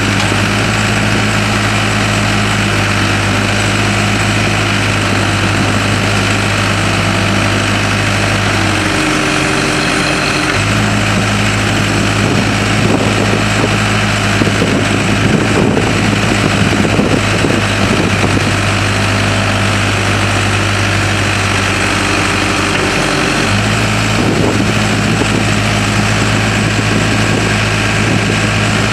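Case 580M Series II backhoe's four-cylinder diesel engine running steadily, its note changing briefly about nine seconds in and again near 23 seconds, with a rougher, noisier stretch in the middle.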